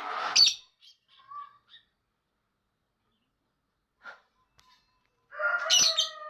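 Lovebird chattering in sharp chirps and short scratchy calls for about the first two seconds, then a gap. Near the end a drawn-out call with a slowly falling pitch begins.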